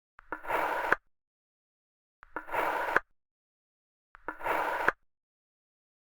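Kinetic sand being sliced with a knife: three cuts, each under a second long and ending in a sharp click, about two seconds apart.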